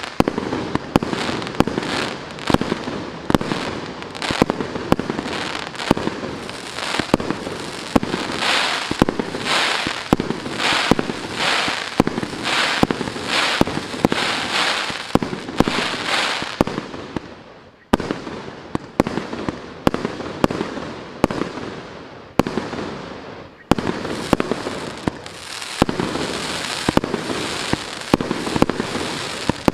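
Maxsem GWM6123 'Classic Show' fireworks cake firing shot after shot: sharp bangs about once or twice a second with crackling between them. It fades briefly about two-thirds of the way through, then resumes.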